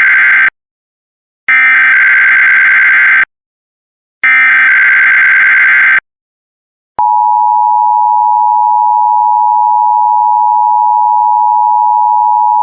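Emergency Alert System SAME header: repeated screeching bursts of digital data tones, each under two seconds and about a second apart, marking the start of an alert. After a second's pause, the steady EAS attention tone begins about seven seconds in.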